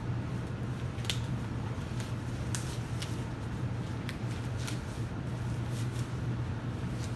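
Scattered crinkles and snaps of a PVC rain suit and gloves being handled and pulled into place, over a steady low hum.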